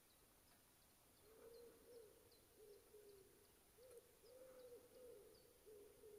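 Soft, low hooting calls from an animal, a run of short notes about two a second that begins about a second in, with faint high bird chirps throughout.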